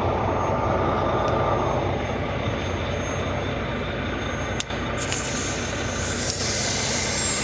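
Steady rumble of a running vehicle engine, with a rushing hiss coming in about five seconds in.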